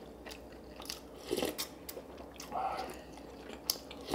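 Close-up eating sounds: chewing and biting food, with a run of small sharp clicks and a few louder crunchy bites.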